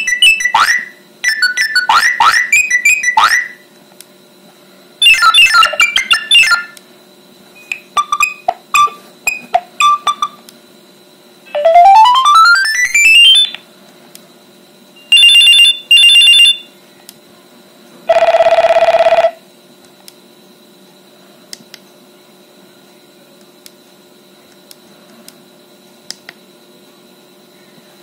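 A Nokia 6820's loudspeaker playing a run of short built-in alert tones one after another as the list is scrolled: trilling chirps, spaced beeps, a rising sweep, then a buzzing tone, each a second or two long. The last third holds only faint button clicks.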